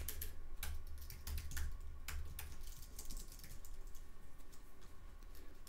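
Computer keyboard typing: scattered keystrokes and short runs of key presses while editing code, fewer toward the end, over a low steady hum.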